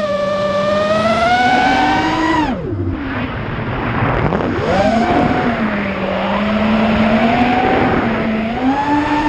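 FPV racing quadcopter's electric motors whining, the pitch rising and falling with throttle; the throttle drops away about two and a half seconds in and comes back up a couple of seconds later. The noise comes from one bad motor, which the uploader says causes a lot of oscillation and noise.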